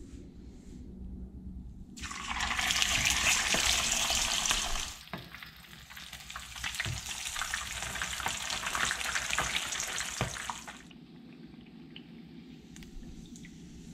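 Small whole bullhead catfish frying in hot oil in a pan. A loud sizzle starts suddenly about two seconds in, settles a little and carries on with crackling, then dies away about eleven seconds in.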